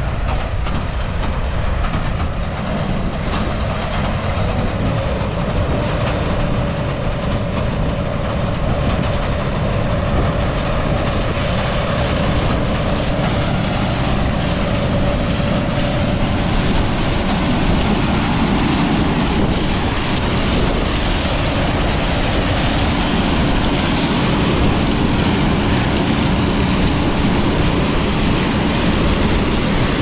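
Combine harvester running while harvesting corn, heard from outside the machine: a steady, loud mechanical drone with a faint steady whine.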